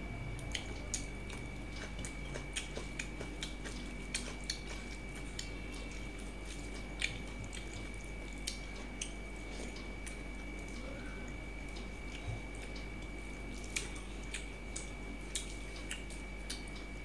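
Close-up eating sounds: chewing, lip smacks and squelches of rice and curry being mixed and eaten by hand, as scattered small clicks and smacks. A steady faint high whine runs underneath.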